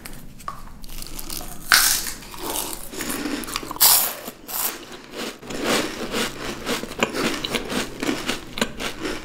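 Crisp chocolate-coated wafer rolls being bitten, with two loud crunching bites about two seconds apart, followed by steady crunchy chewing close to the microphone.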